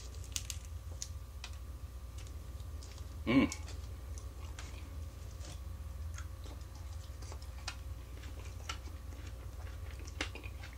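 Small scattered clicks and crackles of eating: fingers pulling apart a cooked quail and picking at food, with mouth noises. One short louder sound comes about a third of the way in, over a steady low hum.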